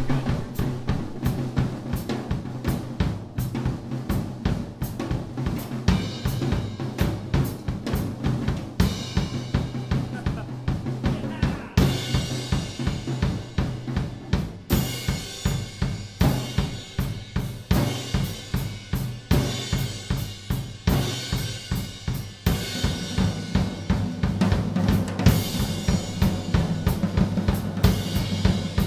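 A Gretsch drum kit played in a steady, driving beat, with bass drum, snare and hi-hat strikes. Cymbal crashes come in and out in stretches.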